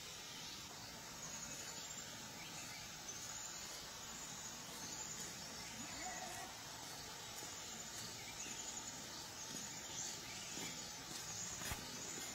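Countryside ambience: a steady background hiss with faint, repeated high-pitched chirps of small wild creatures, and a single sharp click near the end.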